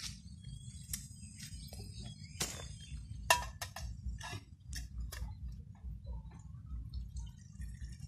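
Metal camping cookpot clinking and knocking as it is handled on a small gas canister stove: a string of sharp clicks, the loudest about three seconds in, over a steady low rumble. Near the end water trickles from a jug into the pot.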